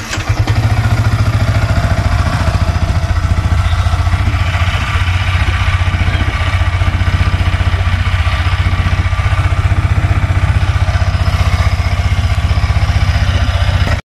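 Yamaha MT-15's single-cylinder engine firing up and then idling steadily with a fast, even pulse through its stock exhaust.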